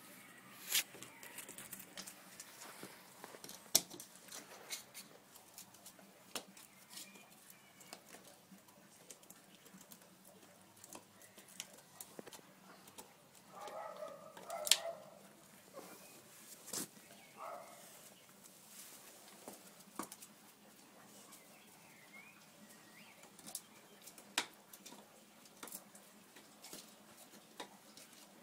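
Dog gnawing a chew bone: scattered sharp clicks of teeth on the bone, a few seconds apart. Two short pitched sounds come about halfway through.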